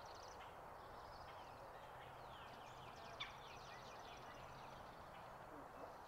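Faint background birdsong: quick high chirps from small birds, with one sharper chirp about three seconds in, over a faint low steady hum.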